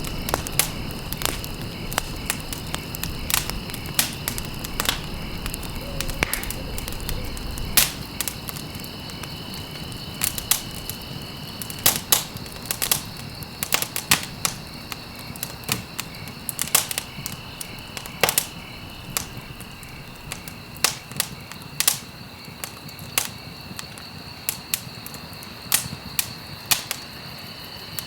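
Campfire burning wood and crackling, with irregular sharp pops and snaps of varying loudness. A steady high-pitched tone runs underneath, and a low rumble of flames fades over the first several seconds.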